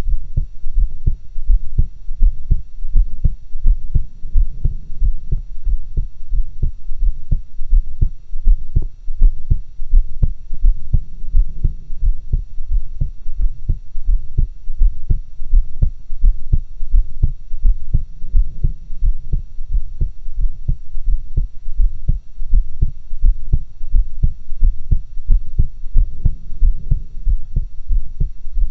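A woman's heartbeat heard through a stethoscope: a steady, regular rhythm of low thumps.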